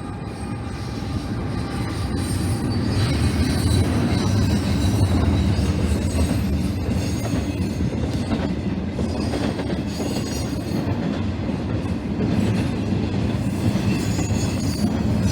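A train rolling past close by, a heavy low rumble with rail noise that grows louder over the first few seconds and then holds steady, with a high wheel squeal coming and going.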